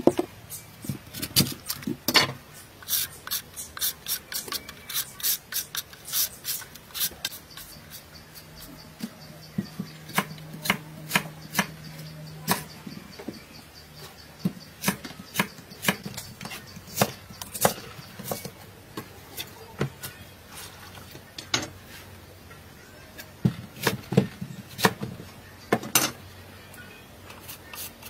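Small kitchen knife scraping the skin off a root and cutting it by hand: an irregular run of sharp scrapes and clicks, several a second.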